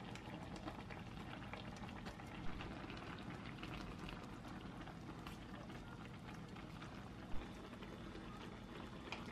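Liquid bubbling on the boil in a pot: a steady simmer made of many small pops, with a couple of sharper ticks.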